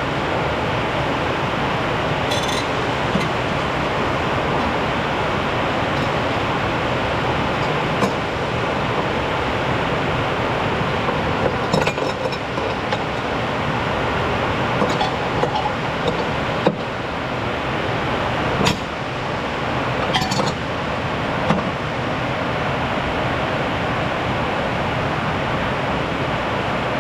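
Steady rain, with sharp metal clinks every few seconds from hand tools working on the mower's blade hardware.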